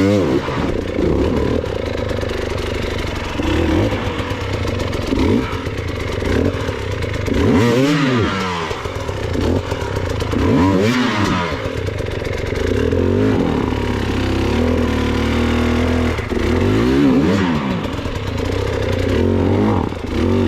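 Enduro motorbike engine revving hard in repeated bursts, its pitch climbing and dropping again and again as the rider works the throttle to get up a steep, slippery rocky trail.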